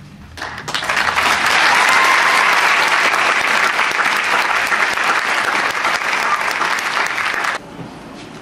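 Audience applause, swelling in about half a second in at the end of a dance and cutting off suddenly near the end.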